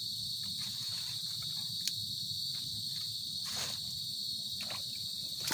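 Steady, high-pitched chorus of insects, one continuous shrill drone, with a few faint clicks over it.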